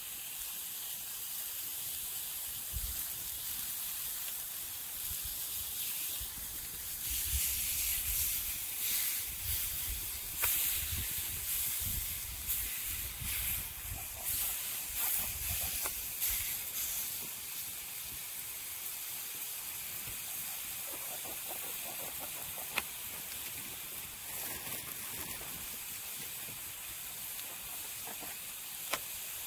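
Slices of pork jowl and sausages sizzling on a hot stone slab over a campfire: a steady high hiss, with a few faint clicks from the chopsticks and the fire.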